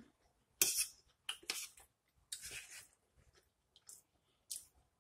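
Someone eating a huarache with a fork: a handful of short, irregular bursts of chewing and fork-on-plate sounds.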